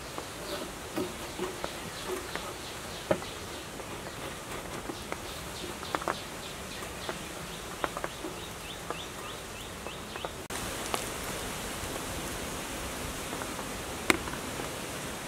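A glass bowl being pressed and worked onto rolled dough on a tabletop to cut a round wrapper: scattered light knocks and taps, with a high chirping repeating three to four times a second in the background. About two-thirds of the way through the chirping stops and a steady hiss takes over, with one sharp click near the end.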